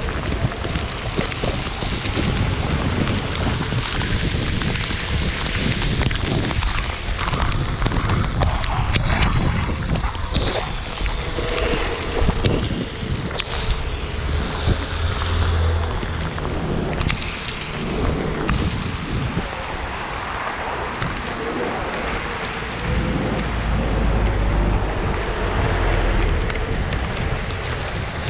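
Wind buffeting the microphone over a steady rush of heavy rain and wet-tyre hiss from an electric scooter riding through a downpour. The low wind rumble swells about halfway through and again near the end.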